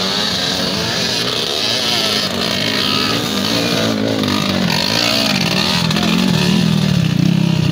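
Dirt bike engines revving on a steep climb, their pitch rising and falling, and louder near the end as a bike comes up close.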